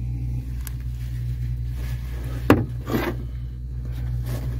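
Steady low machine hum, with two brief rubbing sounds about two and a half and three seconds in as a worn metal engine part is turned in a cloth rag.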